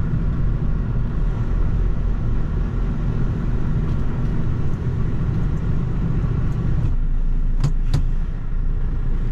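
Heavy goods lorry running at low speed, a steady low rumble of its diesel engine and tyres. Two sharp clicks come close together near the end.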